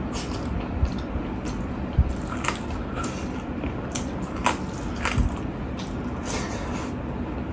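Close-up eating sounds: chewing with the mouth, and fingers squishing and mixing rice on a steel plate, with a few sharp short clicks along the way.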